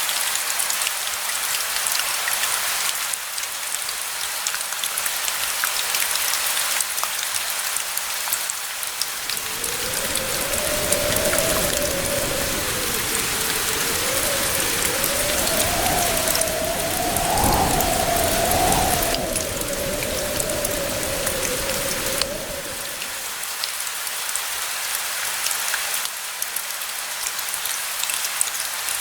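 Steady rain hissing, with a long low rumble of distant thunder rolling in about a third of the way through and fading after some thirteen seconds.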